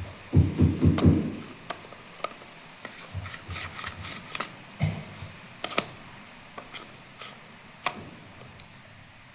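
Handling noise from a removed washing-machine drain pump and its plastic housing: a burst of low bumping and rubbing about half a second in, then scattered light plastic clicks and taps.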